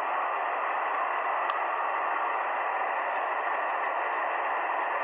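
Shortwave receiver hiss: steady band noise through the receiver's narrow voice passband on a 7.278 MHz amateur frequency, with no station answering the call.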